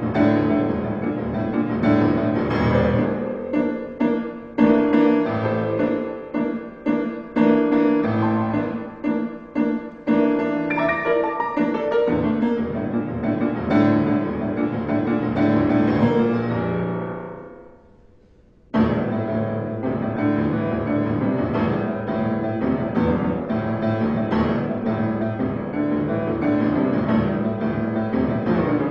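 Piano music with sharp struck chords and notes. About two-thirds of the way through it dies away to a brief near-silence, then starts again abruptly with a dense, continuous flow of notes.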